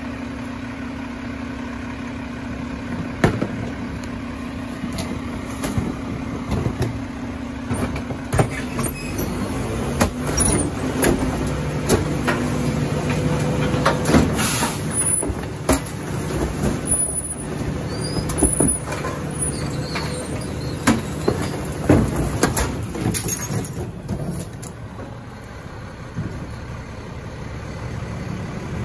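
Mack LR rear-loader garbage truck working with its Heil Formula 4060 packer: a steady mechanical hum that drops to a lower pitch about a third of the way in, with repeated clanks and bangs and a few brief high squeals, then a quieter spell near the end.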